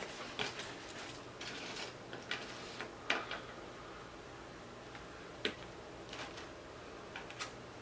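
Quiet, scattered small clicks and a brief papery rustle as food and paper wrappers or napkins are handled, the loudest click about three seconds in.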